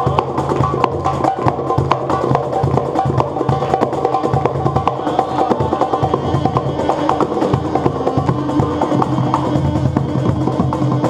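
Live band playing: a quick, busy percussion rhythm over sustained low notes.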